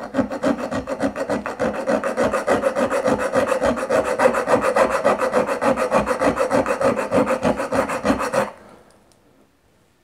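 Small multitool file, a Nextool Flagship Mini's, rasping back and forth on a metal rod in rapid even strokes, stopping near the end.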